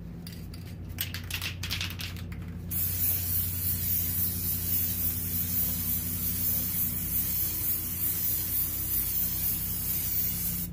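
Aerosol spray-paint can spraying: a few short spurts about a second in, then one long continuous hiss from about three seconds in.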